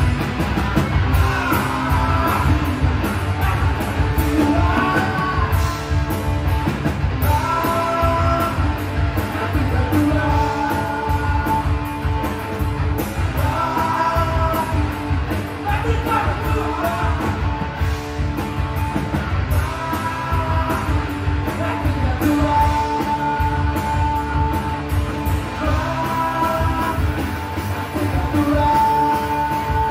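Live rock band playing electric guitar, bass guitar and drums, with a man singing into the microphone.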